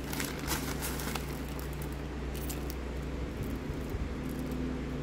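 Small plastic craft beads from a 1998 Barbie bead kit clicking together and a plastic bag crinkling as a hand scoops a handful out. The clicks and rustles come in the first second or so and again about two and a half seconds in, over a steady low hum.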